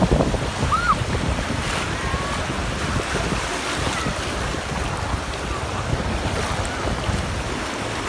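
Black Sea surf washing and churning in the shallows, with wind buffeting the microphone in a steady low rumble.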